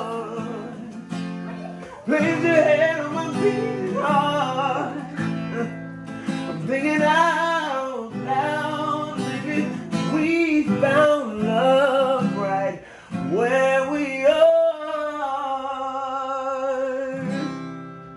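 A man singing over strummed acoustic guitar, holding one long note about three-quarters of the way through before the guitar carries on alone.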